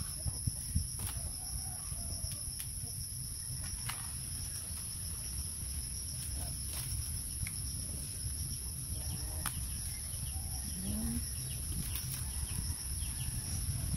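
Outdoor ambience with a steady, high insect drone at two pitches and a low rumble. Light clicks come and go as thin bamboo strips are handled and woven, and a few faint animal calls sound, one rising briefly near the end.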